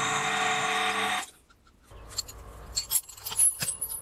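Small milling machine running with an end mill in the bore of a brass steam-engine cylinder, a steady machine tone that cuts off suddenly about a second in. After a brief pause come light metallic clicks and clinks as the brass part and a small wrench are handled under the end mill.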